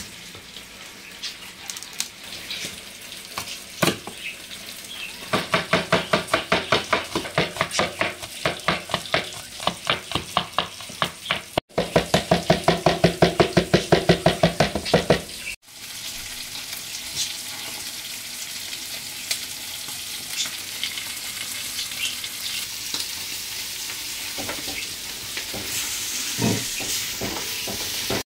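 Chicken frying in a saj pan, sizzling steadily, while a metal spatula clatters against the pan at about five strokes a second as the pieces are stirred. From about halfway on, only the sizzling with light scattered ticks remains.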